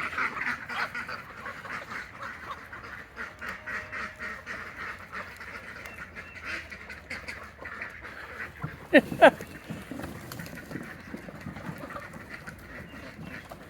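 A flock of farmyard fowl calling noisily while being fed, a dense run of rapid calls, with two loud rising calls close together about nine seconds in.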